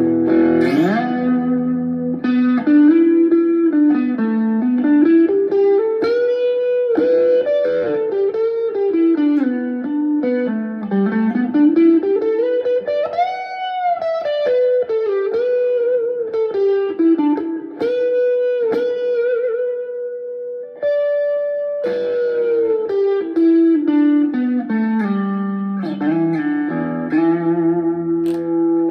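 Chapman ML1 Traditional Strat-style electric guitar played through a Blackstar HT1-R valve amp. It plays a melodic single-note lead line with string bends and vibrato on held notes, mixed with some chord stabs.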